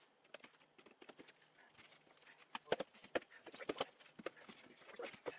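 Irregular light knocks and clicks from the panels and hardware of a flat-pack particleboard bookcase being handled during assembly, with a few louder knocks around the middle.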